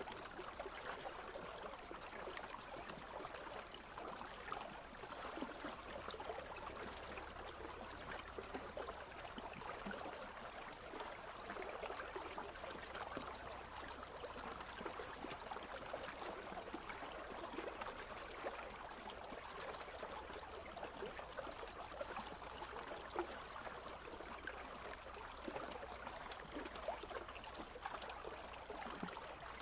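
A shallow country stream flowing and babbling steadily over stones.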